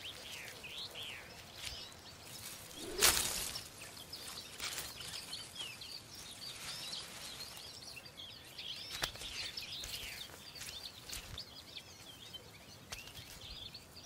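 Small songbirds chirping and twittering in short, quick calls, with one brief louder thud about three seconds in.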